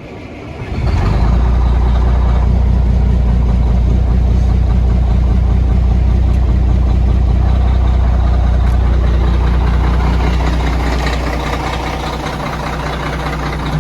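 Heavy truck diesel engine running at a steady idle, with a strong low drone. It comes up to speed about a second in and settles slightly lower near the end.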